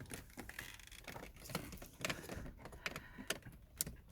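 Scattered small clicks and light rattles of hand tools and plastic parts being handled at the ignition switch, as a screwdriver is fetched and set to the switch's retaining clips; a few sharper clicks come in the second half.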